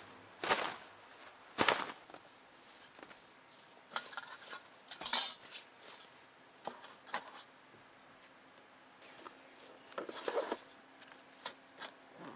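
Metal cutlery and camp cookware clinking and clattering in a string of separate, irregularly spaced knocks.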